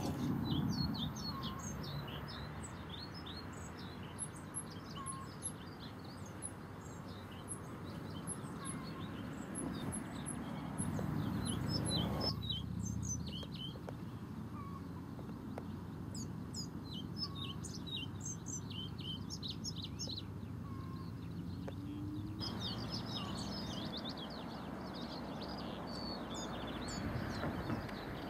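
Male pied flycatcher singing: phrases of quick, high notes repeated with short pauses, over a steady low background rumble.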